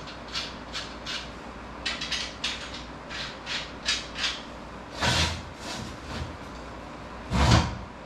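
Steel fittings scraping and squeaking against the square-tube frame of a homemade bandsaw mill in a quick series of short strokes, then two heavier metal clunks, one about five seconds in and a louder one near the end.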